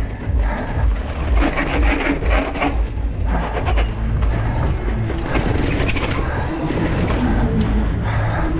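Mountain bike ridden hard over rough ground, heard from a GoPro on the bike or rider. There is a steady low rumble from the tyres and moving air, with irregular rattles and knocks from the bike.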